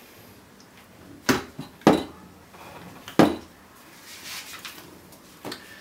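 A scoped bolt-action rifle handled and laid down on a wooden bench: three sharp knocks with light clatter, about a second and a half in, at two seconds and just past three seconds, then softer scuffling.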